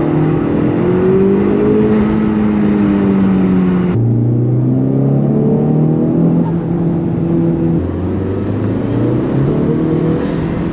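Honda Civic Type R FL5's 2.0-litre turbocharged four-cylinder under acceleration pulls, with the stock intake and a K&N drop-in filter and the exhaust valves shut, so mostly intake sound and road noise. The engine note climbs in pitch, then changes abruptly about 4 seconds in and again about 8 seconds in.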